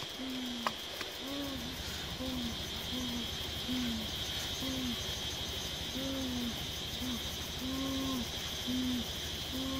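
A low hooting call repeated over and over, about one hoot every two-thirds of a second, each hoot rising and falling slightly in pitch, over a steady high-pitched insect drone.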